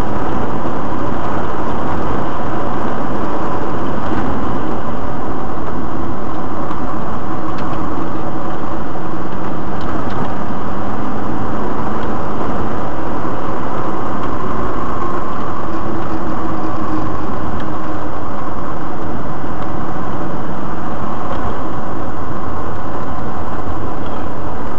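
Steady cabin noise of a 2004 Subaru Forester X driving along a sealed back road, picked up by a dashcam: a loud, even rumble of tyres and the flat-four engine, with the engine note shifting a little about midway.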